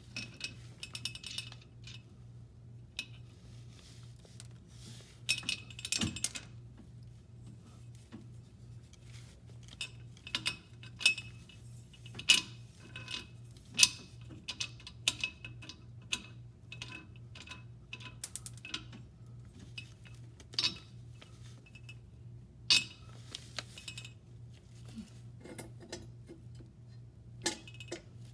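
Irregular metallic clinks, taps and knocks of hand tools, bolts and steel exhaust pipe being handled while fitting a flex pipe to a downpipe, a few of them sharper and louder. A faint steady low hum runs underneath.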